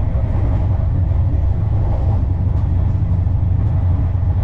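Passenger express train running, a steady low rumble with no distinct wheel clacks.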